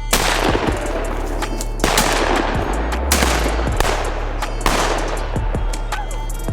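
Four shotgun blasts at waterfowl, one to two seconds apart, each with a long echo trailing away. Background music plays underneath.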